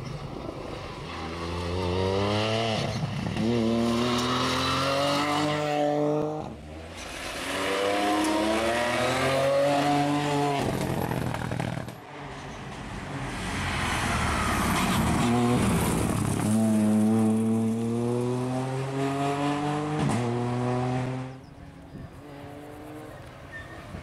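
Ford Fiesta rally car engine accelerating hard through the gears: the revs climb, drop at each upshift and climb again, several times over. The engine note falls away near the end.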